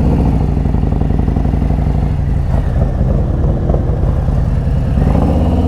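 Motorcycle engine running steadily, its exhaust note a fast low pulsing.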